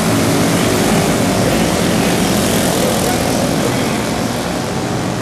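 Several outlaw kage karts (winged mini sprint karts) racing on a dirt oval, their small engines running together in a steady, loud drone.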